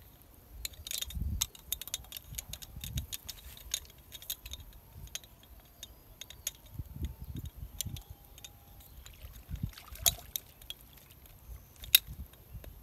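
Outdoor ambience of scattered small, sharp clicks and taps, with two louder clicks near the end, over irregular low rumbles.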